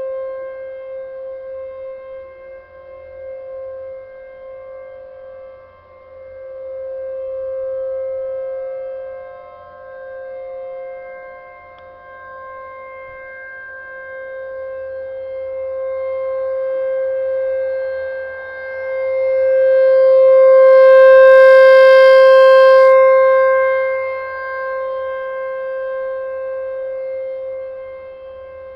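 Tempest rotating outdoor warning siren sounding a steady alert tone at one held pitch. It swells and fades in loudness as the rotating head sweeps toward and away, and is loudest about two-thirds of the way through.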